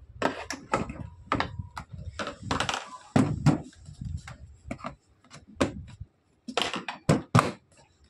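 Irregular clicks and knocks of hard plastic as a plastic bumper bar is handled and pressed into place on a children's ride-on toy jeep.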